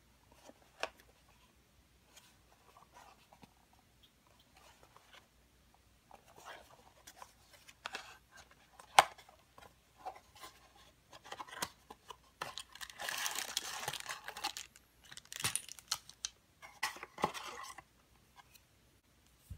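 Thin cardboard box handled and opened by hand: light scrapes and clicks, with one sharp snap as a flap comes free about halfway through. Then a stretch of plastic packaging crinkling as the small bagged miniature pieces are pulled out.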